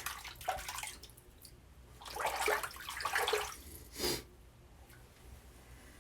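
Water splashing at a sink in a few short spells, with a sharper splash about four seconds in.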